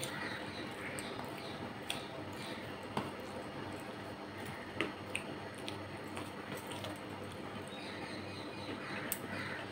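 Eating by hand: chewing and wet mouth sounds, with fingers mixing rice on a steel plate and a few sharp clicks, over a steady background hiss.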